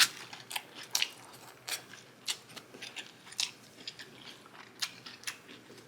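Close-up chewing of a lettuce-wrapped double cheeseburger: wet mouth clicks and crisp crunches at an uneven pace, about two a second, with a louder bite right at the start.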